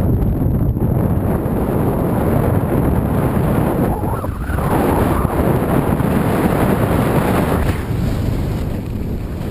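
Wind rushing over the microphone of a downhill skier's action camera: a loud, steady low rumble. The skis hiss over groomed snow beneath it.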